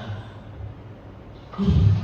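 Film soundtrack music, with a deep, loud boom about a second and a half in.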